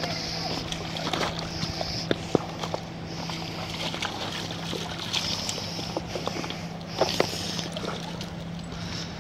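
A dog wading in shallow river water among rocks: splashing and sloshing, with a few sharp knocks of stones or paws on rock, over a steady low hum.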